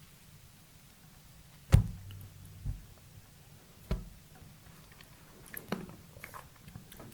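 Close-miked eating sounds of a dessert: a sharp, loud thump a little under two seconds in, two smaller knocks over the next two seconds, then a run of light clicks and mouth sounds near the end.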